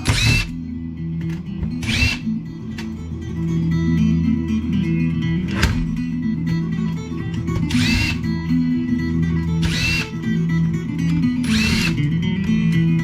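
About six short bursts of a cordless drill/driver spinning up, roughly two seconds apart, while screws are backed out of PC power supply cases. Guitar music plays from a shop radio underneath.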